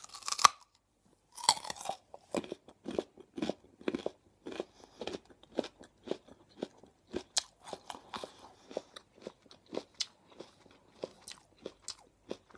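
A bite snapping a piece off a raw carrot close to the microphone, the loudest crack about half a second in, followed by steady crunchy chewing at about two chews a second.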